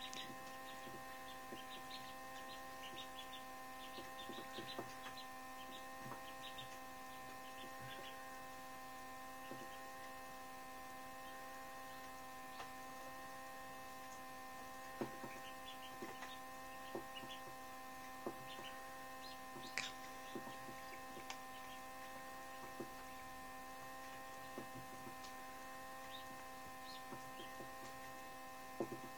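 Steady hum from an egg incubator, with sharp taps scattered at irregular intervals and short faint cheeps from a newly hatched duckling bashing its beak against the edge of its brooder box.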